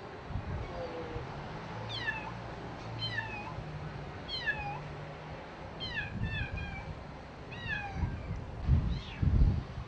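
Kitten mewing about eight times, each call short, high-pitched and falling in pitch. Dull low thumps come near the end and are the loudest sound.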